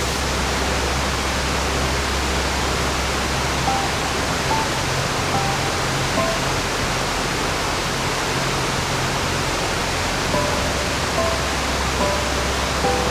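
Gorge stream rushing, a steady full hiss of running water. Soft background music with sparse single notes plays over it.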